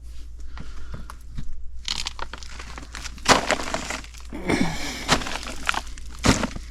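Irregular crinkling, rustling and sharp cracks of materials being handled and moved against, with louder cracks about a third of the way in and again near the end.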